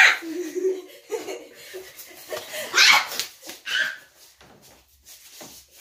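People laughing and shrieking in bursts, loudest at the start and again about three seconds in.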